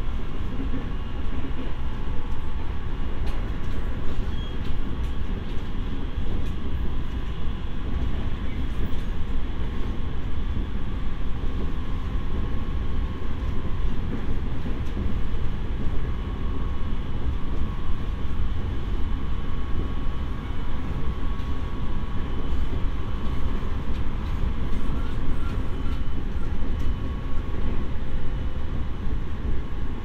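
JR East E501 series electric train running on the line, heard from inside motor car MoHa E501-2: a steady low rumble of wheels on rail with a steady whine over it.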